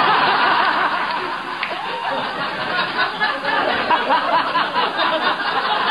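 A room of guests laughing together, many voices overlapping. The laughter is loudest at the start and eases a little after a couple of seconds.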